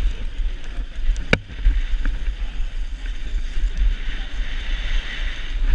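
Wind rush and low rumble on a helmet-mounted camera's microphone as a BMX bike races over a packed dirt track, with tyre noise and a single sharp click about a second and a half in.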